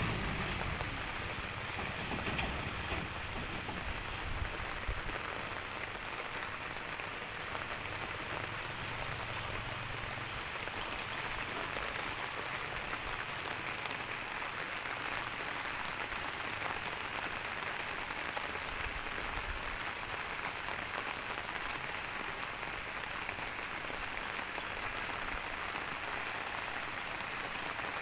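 Steady rain falling, an even hiss throughout. A motor fades out in the first second, and there are a couple of faint knocks about two and four seconds in.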